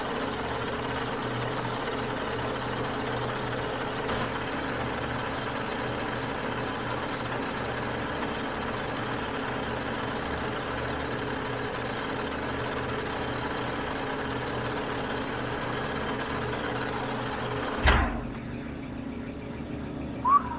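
Metal lathe running steadily at about 745 RPM, taking a light finishing cut across a steel axle shaft with the feed at 3 thousandths per rev: an even machine hum with a hiss. Near the end comes one sharp clunk, and the running noise drops away.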